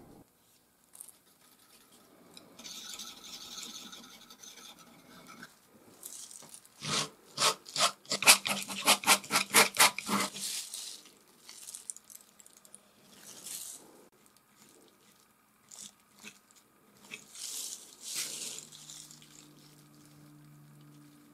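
Steel palette knife scraping and mixing oil paint, with soft strokes and then, in the middle, a loud run of quick back-and-forth strokes, about four a second.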